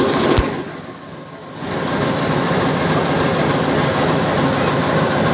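Metre-gauge YDM-4 diesel locomotive's engine running steadily close by, a dense drone with a faint steady whine. A click just under half a second in, then the sound drops for about a second before the steady engine noise comes back.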